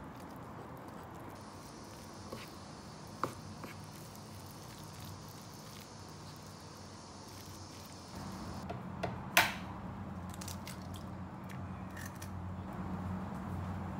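Quiet household handling sounds: a soft hiss with a few light clicks, then a low hum that starts about eight seconds in, with a sharp clink just after it.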